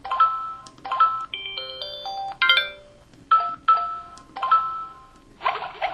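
Samsung SPH-V4400 mobile phone speaker playing its built-in sound effects one after another: a string of about eight short electronic chimes and beeps, each starting sharply and dying away within a second.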